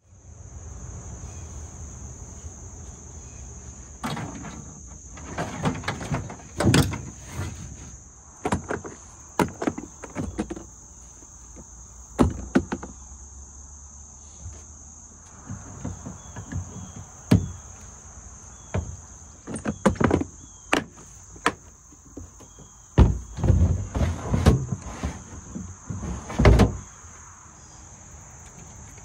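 Steady high-pitched insect chorus, with a series of irregular knocks and clunks over it that are the loudest sounds, coming in two clusters in the first half and again near the end.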